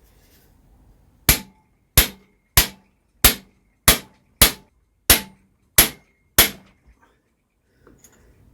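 Hammer striking a hand impact driver nine times in a steady rhythm, about one sharp metallic blow every two-thirds of a second, each with a short ring, to loosen a pair of engine fixings.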